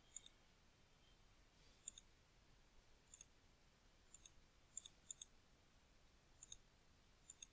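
Faint computer mouse clicks, about ten of them at irregular intervals, some in quick pairs.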